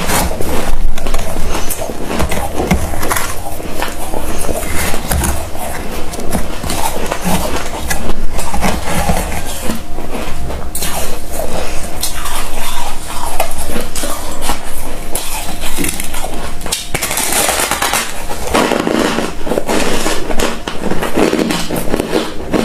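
Loud, dense crunching and crackling of fluffy freezer frost being bitten and chewed, mixed with the crumbly frost breaking apart in the fingers.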